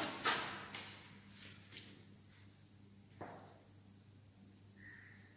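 Faint room noise with a low steady hum. A few brief rustles come in the first moment, then a single knock about three seconds in and a short high chirp near the end.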